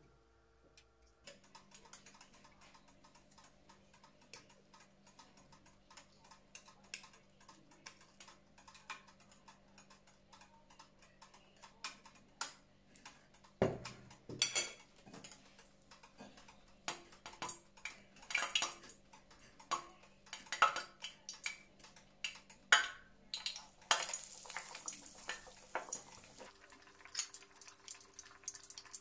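Kitchen utensils clinking, tapping and scraping against dishes and a pan, busiest in the second half, over a faint steady hum, with a short hiss near the end.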